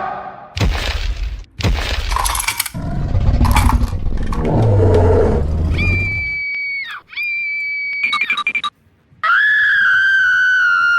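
Crashing and breaking sound effects in several loud bursts, then two long steady high electronic tones, the second slightly lower and falling a little.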